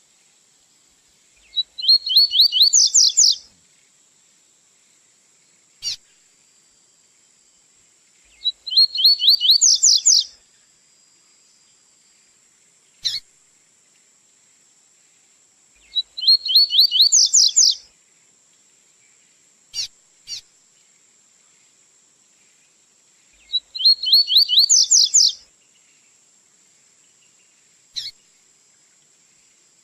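Double-collared seedeater (coleiro) singing its 'tui-tui' song: four short, fast trilled phrases about seven seconds apart, with single sharp clicks between them and a faint steady high hiss underneath.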